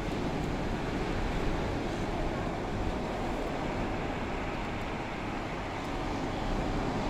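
Steady low rushing noise of rough surf breaking along the shore, with wind.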